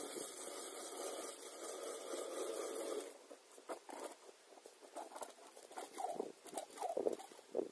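Wind gusting across the ice and fluttering the small fabric flag of a tip-up beside the microphone: a steady rushing hiss for about three seconds, then irregular flapping pulses.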